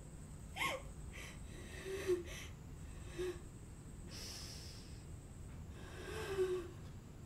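A woman crying quietly: a string of shaky breaths, sniffs and short whimpering catches in the voice, one longer hissing intake of breath near the middle.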